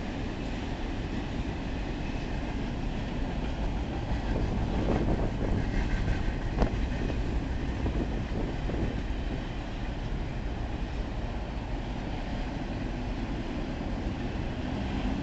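Double-stack container train's well cars rolling past: a steady rumble of steel wheels on the rails, a little louder for a few seconds mid-way, with one sharp knock about six and a half seconds in.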